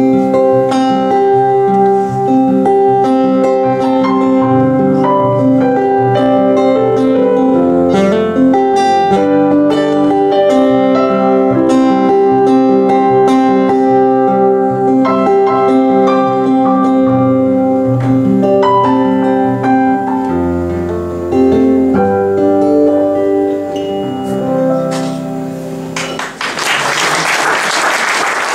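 Acoustic guitar and keyboard playing the instrumental close of a song. Near the end the music stops and the audience breaks into applause.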